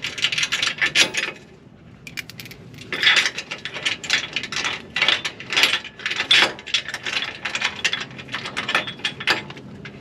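Hand ratchet wrench clicking in quick runs while a bolt is turned, with a short pause about a second in before the clicking resumes.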